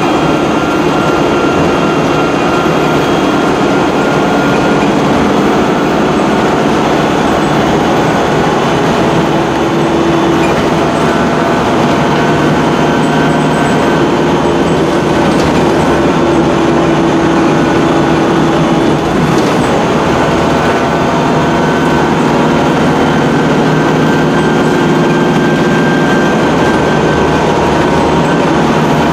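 Cummins ISC Euro 3 diesel engine of a Dennis Dart SLF bus, running hard under load as the bus drives along, heard from inside the saloon together with road noise. The engine note shifts a few times, with a brief dip about nineteen seconds in.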